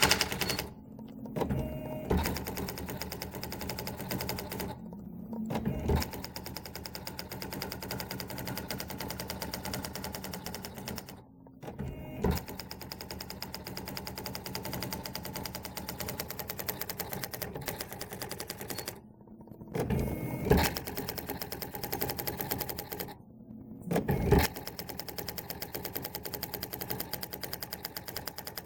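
Swintec 1146cm daisy-wheel electronic typewriter printing on its own from a computer: a rapid, steady stream of print strikes. It pauses briefly five times, and each pause ends with a louder clunk.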